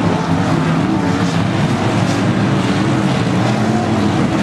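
IMCA Modified dirt-track race cars' V8 engines running together, several overlapping engine notes that waver up and down in pitch.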